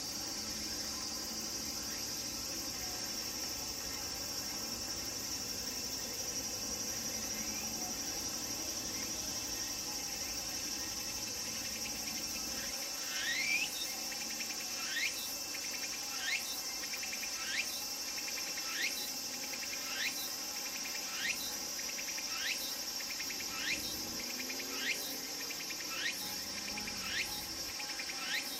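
Cicadas singing: a steady high-pitched buzz throughout. From about halfway through, a tsukutsukuboshi cicada (Meimuna opalifera) repeats a short rising call a little less than once a second and a quarter, louder than the buzz.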